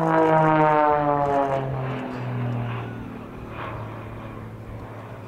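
Extra 330SC aerobatic plane's six-cylinder Lycoming piston engine and propeller in a smoke-on display, loud at first with its pitch falling over the first two seconds, then fading away.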